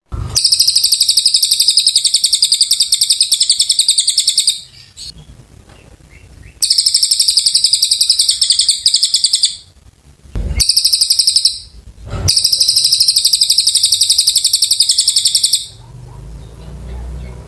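Cililin songbird singing a long, loud run of rapid, high, chattering trills in four long bursts, separated by short pauses. A faint low hum follows the last burst near the end.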